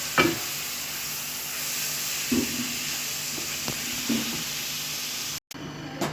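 Food sizzling steadily in a hot pan, with a few short knocks of a spoon against the pan, and a brief cut near the end.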